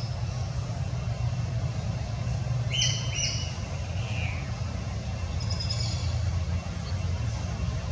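Birds chirping: two short high chirps about three seconds in and a fainter run of chirps near six seconds, over a steady low rumble.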